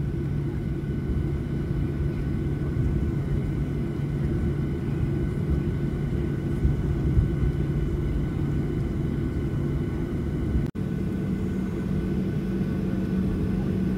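Boeing 737-800's CFM56-7B engines at taxi power, heard from inside the cabin: a steady low rumble with a steady hum. After a brief break about three-quarters of the way through, the hum sits a little higher.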